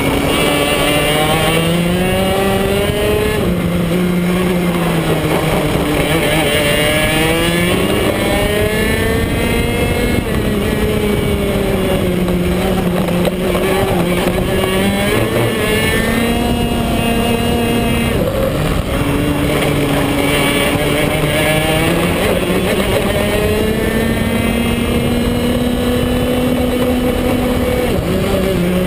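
BMB KF2 125 cc two-stroke kart engine at racing speed, heard from onboard, its pitch climbing and dropping over and over as the kart accelerates out of corners and slows into them.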